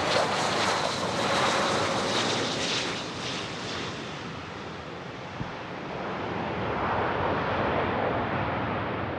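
Business jet engines roaring past the runway, the roar slowly fading as the jet moves away.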